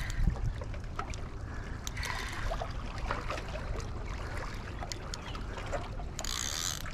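Water lapping and trickling against the hull of a small boat over a steady low rumble, with scattered small knocks and clicks and a brief hiss near the end.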